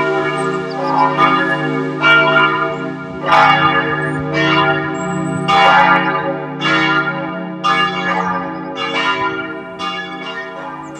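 Church bells ringing in a peal: several bells of different pitches strike in turn, about one strike a second, each ringing on under the next, growing a little fainter near the end.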